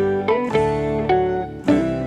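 Background music: a light melody of plucked notes over a bass line, the notes changing every quarter to half second.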